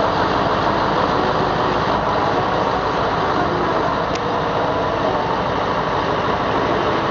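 Heavy recovery lorry's diesel engine idling steadily.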